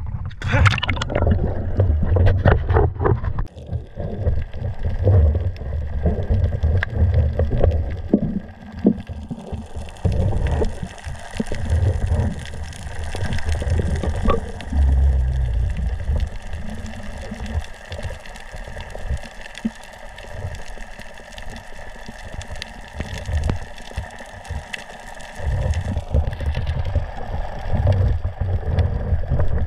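Water moving and gurgling against an underwater camera as a diver swims: an irregular low rumble with scattered clicks and knocks, busiest in the first few seconds.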